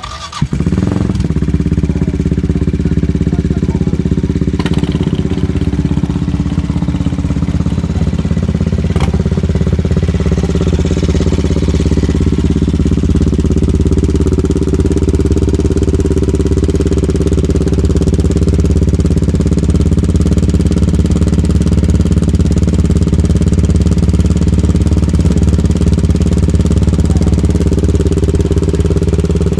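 CCM Spitfire motorcycle's single-cylinder four-stroke engine firing up about half a second in, then idling steadily through its loud twin exhaust, the idle wavering slightly before it settles.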